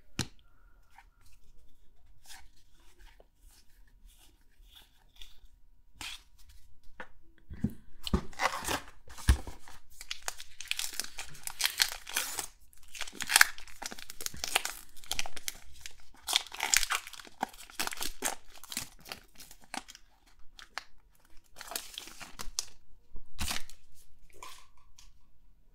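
Crinkling and tearing of a Topps Heritage baseball card pack's wrapper being ripped open, with light rustling and clicks of cards and cardboard being handled. The crackling is thickest from about a third of the way in to past the middle, with a shorter spell near the end.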